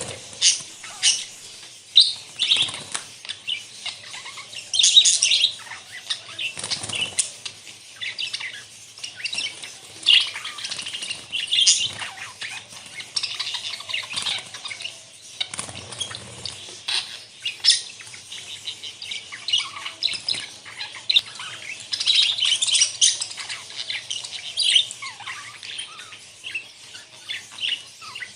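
A flock of budgerigars chattering and chirping, a dense, continuous mix of short high chirps.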